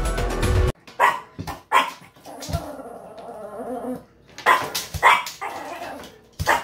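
Small dog barking in short, sharp yaps, a pair about a second in and another few near the end. Music cuts off just before the first bark.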